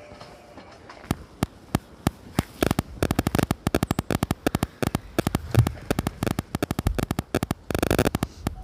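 Dry, very cold snow crunching in a rapid run of sharp crackles, sparse at first and then packed close together, several to about ten a second.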